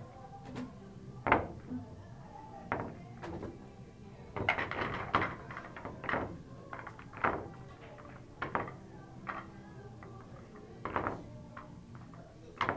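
Pool balls clacking against each other as they are gathered and packed into a triangle rack, a series of sharp knocks, loudest about a second in, with a quick run of them around the middle.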